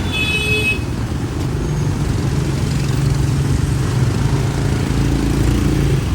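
Motorbike and street traffic running close by, with a steady engine rumble. A short high-pitched beep sounds at the very start.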